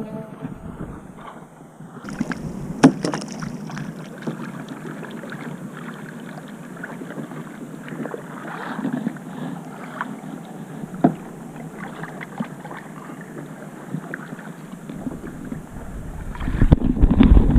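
Paddles dipping and splashing alongside a tandem kayak, with water trickling and two sharp knocks about three seconds and eleven seconds in. Wind buffets the microphone near the end.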